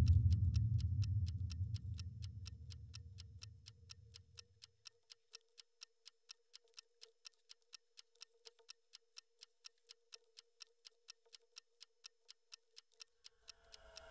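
A low boom fading out over the first few seconds, then steady clock-like ticking at about four ticks a second over a faint steady tone.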